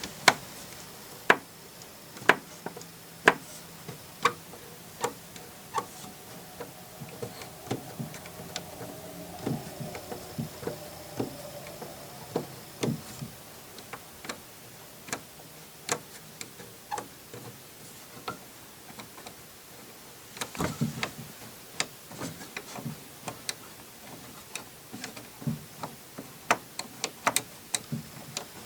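Sharp wooden clicks and knocks, about one a second at first and then more irregular, from the antique barrel organ's mechanism being handled, with a brief rattle about twenty seconds in.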